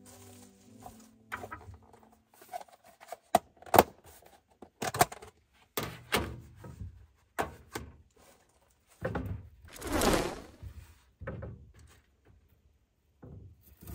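Food preparation on a small galley counter: irregular knocks and clunks of a food container and a knife being handled on a wooden cutting board. Two longer, noisier sounds come about nine seconds in and near the end.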